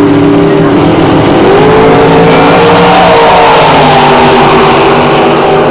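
Drag race cars' V8 engines at full throttle down the track, with a gear change about a second and a half in, the pitch dropping and then climbing again.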